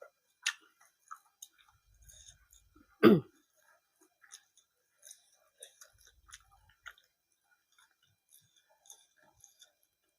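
A person chewing food with small wet mouth clicks and smacks. About three seconds in there is one short, louder mouth sound that falls in pitch.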